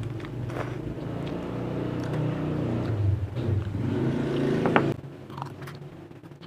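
A motor vehicle engine running with a steady low hum that grows slightly louder, then falls away suddenly about five seconds in, just after a sharp click.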